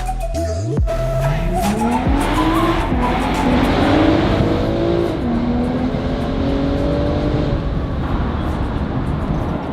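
BMW 840i's turbocharged inline-six running through an aftermarket valvetronic turbo-back exhaust, accelerating hard with a rising pitch. About five seconds in the pitch drops as it shifts up, then it runs on more steadily and eases off near the end.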